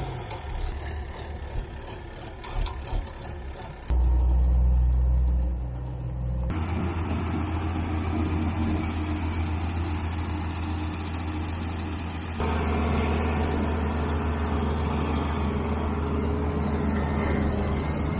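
Diesel tractor engine running steadily while pulling a Gehl 2365 mower conditioner through hay. The sound changes abruptly about 4, 6.5 and 12 seconds in, between separate shots.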